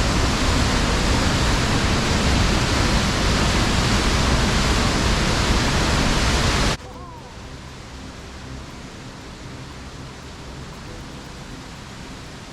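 Loud, steady roar of a waterfall, glacial meltwater plunging through a rock gorge, that cuts off suddenly about seven seconds in, leaving a much quieter steady hush.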